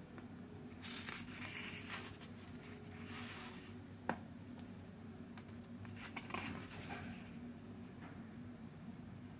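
Paper pages of a hardbound sketchbook being turned by hand, rustling and sliding in several short passes, with one sharp click a little past four seconds in. A faint steady hum lies underneath.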